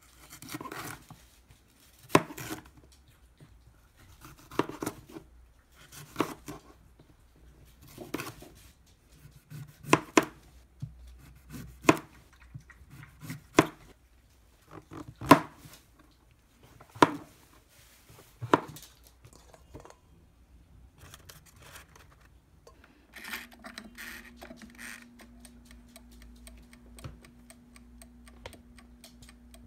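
Kitchen knife slicing through bell pepper and king oyster mushroom on a plastic cutting board, a sharp knock against the board about every two seconds. Later a Livingwell air fryer is started: a steady fan hum with the fast, even ticking of its mechanical dial timer.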